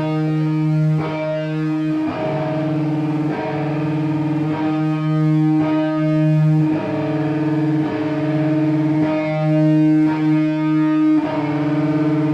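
Distorted electric guitar through effects, playing slow held notes that change about once a second, each note ringing out with a steady fluttering waver.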